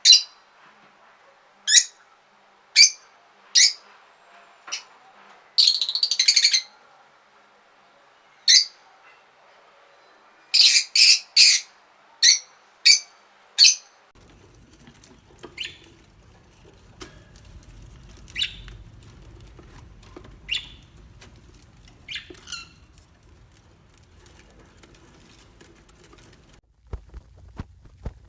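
Parrot squawking in short, sharp, high calls, singly and in quick runs. About halfway through, the calls become fainter and sparser over a low background rumble.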